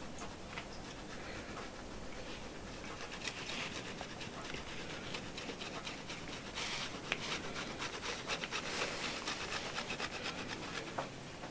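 Food being rubbed across a hand grater in uneven rasping strokes, with small clicks in between.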